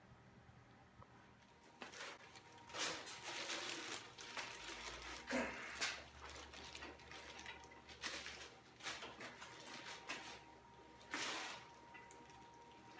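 Unboxing handling noises: irregular rustling and scraping bursts a second or two apart as packaging and parts are moved about, with a short low hum in the middle.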